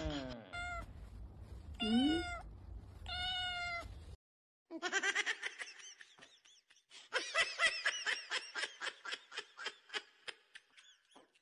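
A husky crying and whining in rising, howl-like calls, then after a short break a run of high-pitched cries that speed up into quick pulses and trail off.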